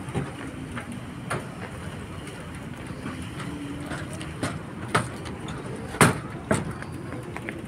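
Steady outdoor background noise with a faint low hum, broken by a few sharp knocks, the loudest about six seconds in.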